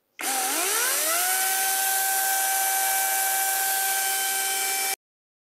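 Parkside Performance PPKSA 40-Li A1 cordless brushless chainsaw run with no load: the motor and chain spin up with a rising whine over about a second, hold a steady high whine, then cut off abruptly near the end.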